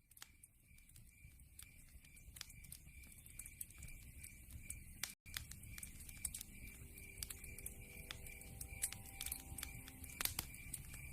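Wood fire burning in a fireplace: logs crackling with irregular sharp pops over a low rumble of flame. The sound drops out for an instant about five seconds in.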